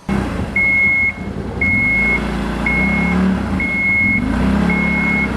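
A vehicle's reversing alarm beeping, six even beeps about one a second, over the low running of its engine.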